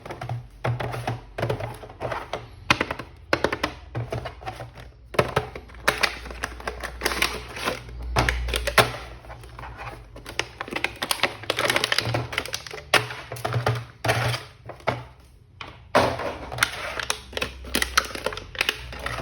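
Rapid, irregular plastic clicks, taps and knocks from action figures and their packaging being handled, over background music.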